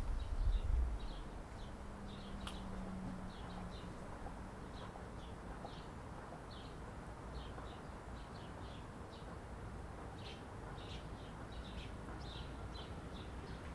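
Small birds chirping in short, high calls, several times a second, over a faint steady outdoor background, with a low rumble during the first second.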